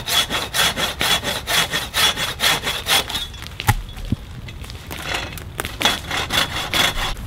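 Long-bladed hand saw cutting into an overhead tree branch in quick, even back-and-forth strokes, about four a second. It pauses for a second or so midway, then saws on.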